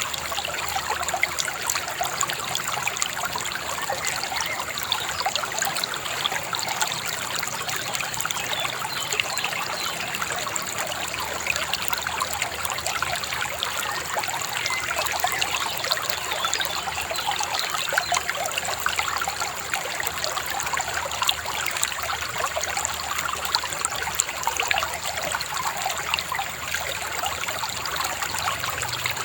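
Shallow river babbling and trickling over stones, a steady, even flow.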